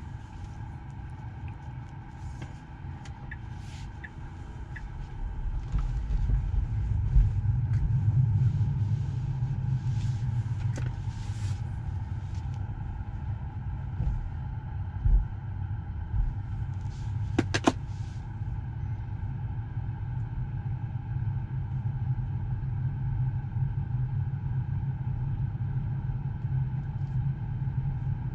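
Steady low rumble heard inside a car, growing louder about six seconds in, with a short sharp click about halfway through.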